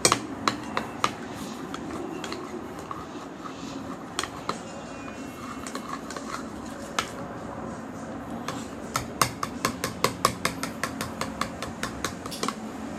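Spoon clinking and scraping against a bowl as slime is stirred, in quick runs of clicks near the start and again from about nine seconds in, with only a few scattered taps in between.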